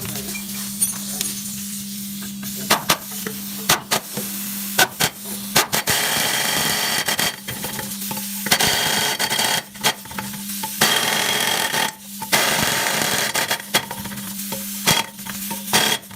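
Workshop sounds during a car suspension repair: sharp metal clanks and knocks from tools and parts, with several bursts of hissing lasting a second or two, over a steady low hum.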